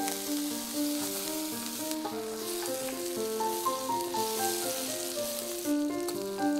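King oyster mushrooms sizzling as they fry in oil in a cast-iron skillet while being stirred with wooden spatulas; the sizzle grows louder about two seconds in and eases off near the end. A melody of background music plays throughout.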